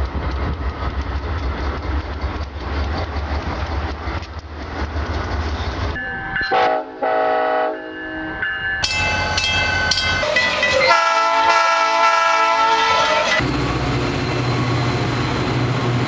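Montage of diesel locomotive sounds: a train rumbling and clattering past, then, about six seconds in, locomotive horns sounding in two separate held blasts until about thirteen seconds in, followed by a diesel locomotive engine running with a steady low hum.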